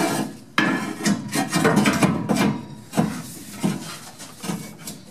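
A cut length of rectangular steel tube being test-fitted into a car's frame: a series of sharp metal knocks with scraping and rubbing between them as it is pushed and shifted into position.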